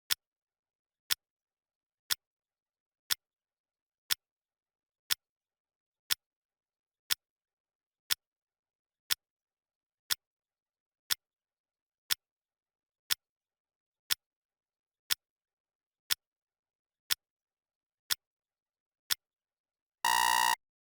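Clock ticking sound, one sharp tick every second, ending in a short electronic alarm beep near the end as the countdown timer reaches zero.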